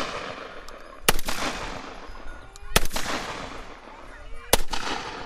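Shotgun fired straight up three times, a second and a half to two seconds apart, each shot echoing as it dies away: warning shots to scare off wolves.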